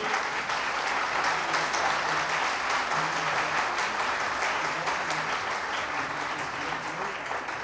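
Audience applauding steadily, a dense even clapping from a hall full of listeners that eases slightly near the end.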